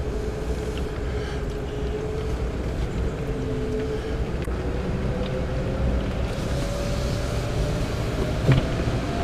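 Pickup truck driving slowly down a winding road, heard from inside the cab: a steady low engine and road rumble with a faint hum whose pitch rises slowly through the second half.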